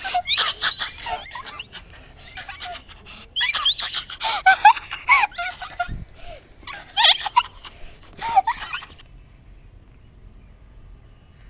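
Young children's high-pitched laughing, squealing and whiny crying in short bursts that break off about nine seconds in, leaving faint outdoor background.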